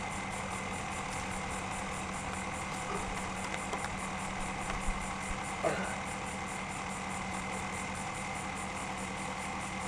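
A steady low mechanical hum, like an engine running in the background, with a few faint taps and rustles of rope being wrapped around wooden poles.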